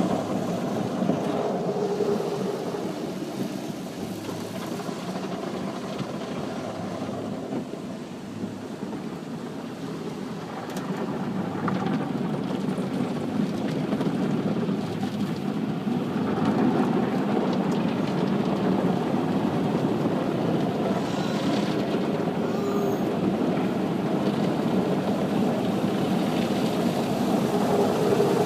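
Automatic car wash machinery working over a car, heard from inside the cabin: a steady rumbling wash noise that eases off for a few seconds and grows louder again about ten seconds in.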